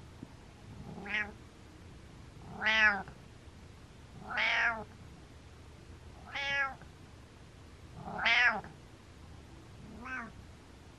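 Orange-and-white domestic cat giving six short 'mreh' meows, one every one and a half to two seconds, each rising and then falling in pitch; the first and last are fainter. The owner takes them for happy sounds.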